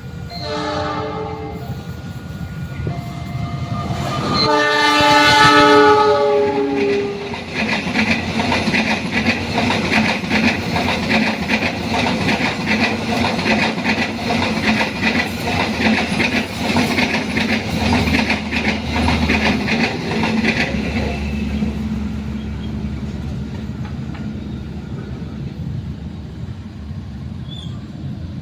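Passing train sounding its horn: two short blasts near the start, then a long, loud blast whose pitch drops as it goes by. Wheels then clatter rhythmically over the rail joints as the cars pass, fading away after about twenty seconds.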